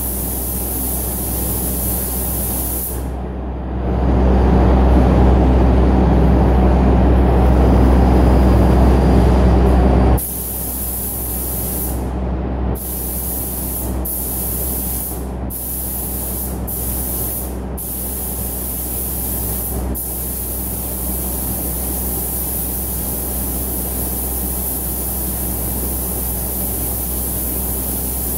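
Air-fed paint spray gun hissing steadily, cutting out briefly several times when the trigger is let go, over the steady low hum of the spray booth. From about four to ten seconds in, the hiss stops and a louder low rumble takes over.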